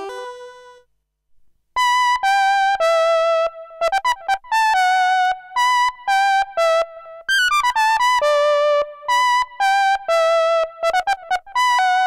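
Arturia MatrixBrute analog synthesizer playing a bright, buzzy lead line of short detached notes, one note at a time, with a few notes gliding into the next pitch. The previous sound dies away at the start, and the line begins after a short pause.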